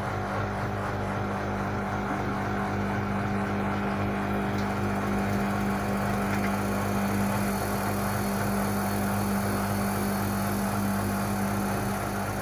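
LG WD-80155NUP front-loading washing machine running steadily mid-cycle, a constant low hum over an even mechanical whir.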